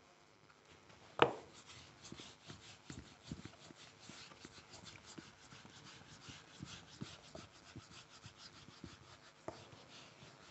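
Handheld whiteboard eraser scrubbing back and forth over a whiteboard, wiping off marker writing in a run of quick rubbing strokes. A sharp knock about a second in is the loudest sound.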